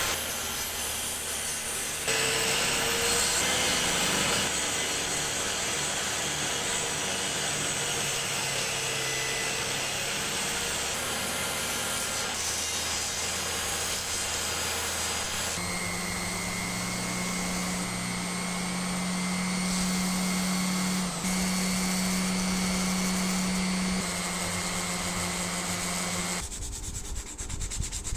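Small benchtop table saw running and cutting through wooden strips, its motor humming steadily, the sound changing abruptly a few times. Near the end, a piece of wood is rubbed back and forth by hand on a sheet of sandpaper.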